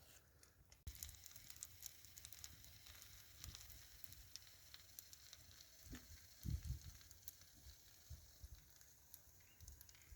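Faint sizzling and crackling of food frying in a pan on the camp stove, with a soft low thump about six and a half seconds in.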